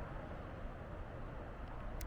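Steady wind rumbling and hissing on the microphone.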